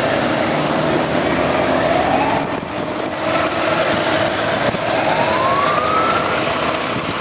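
Motorcycle engine running under way, its pitch rising twice as the bike accelerates, over steady wind and road noise.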